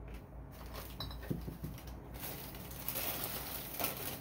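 Rustling and a few light knocks of someone rummaging through items, searching for something. The rustling grows louder and denser about halfway through.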